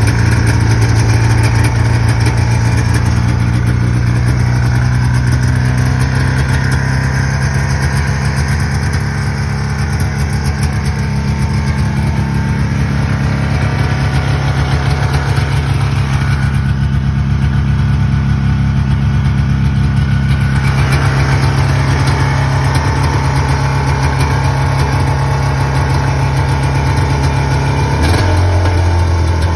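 1981 Yamaha SS 440 snowmobile's two-stroke engine idling steadily at about 2,000 rpm, running well. Its pitch drops slightly near the end.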